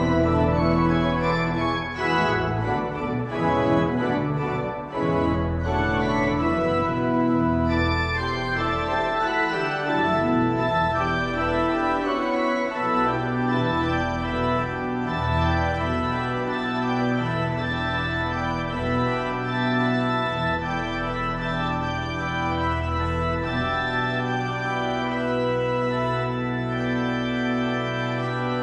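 Organ music: full sustained chords over a moving bass line.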